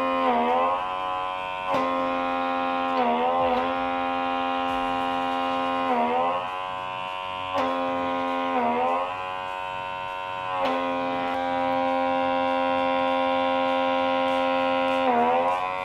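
Small electric blackhead suction tool's vacuum pump running with a steady buzzing whine, its pitch sagging briefly every few seconds as the suction nozzle is pressed to the skin and pulls, then recovering.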